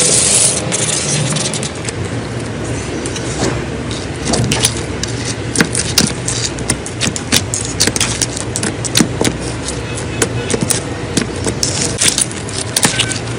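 Slime being squeezed and worked by hand, making irregular wet clicks and pops over a steady low hum.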